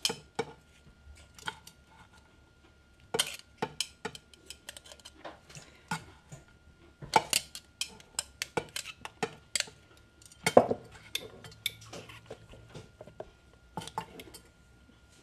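Irregular clinks and knocks of a glass jar and a metal pan being handled as cooked mushroom pieces are packed by hand into the jar, with a louder knock about ten and a half seconds in.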